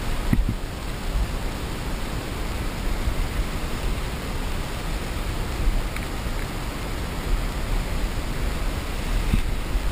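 Steady rushing noise of wind on the camera's microphone, with a low rumble that rises and falls in gusts.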